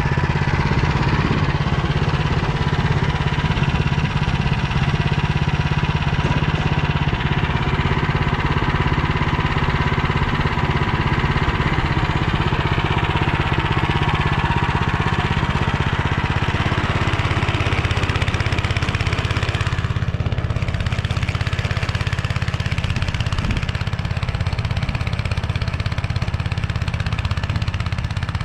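Motor Sich walk-behind tractor engine running steadily under load, driving a rotary tiller through soil.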